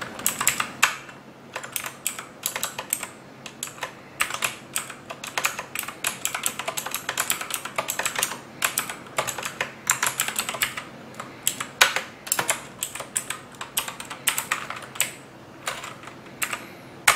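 Typing on a computer keyboard: a steady run of irregular key clicks, several a second, with brief pauses between bursts.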